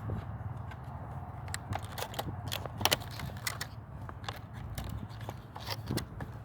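Irregular clicks and light crackles of hands handling something, over a steady low hum; the loudest is a quick pair of clicks about halfway through.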